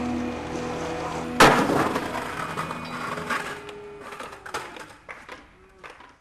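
A skateboard lands hard on concrete about a second and a half in, one loud slap. Its wheels then roll away with a few small clicks, fading out.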